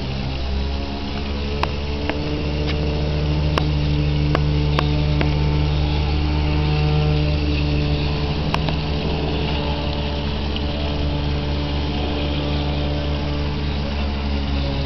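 Water jets of a peacock-shaped garden fountain spraying and splashing, over a steady low motor hum, with a few light clicks in the first half.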